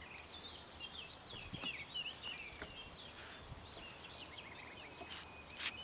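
Birds singing, a steady mix of short chirps and sliding whistled notes, with a quick run of faint high ticks over the first couple of seconds and a sharper noise near the end.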